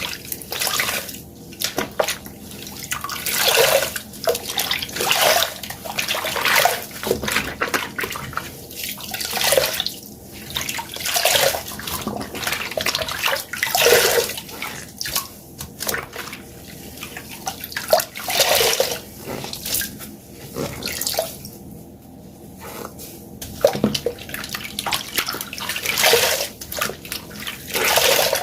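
Water-soaked sponge squeezed over and over, each squeeze a gush of water followed by quieter trickling and dripping, about every one to two seconds.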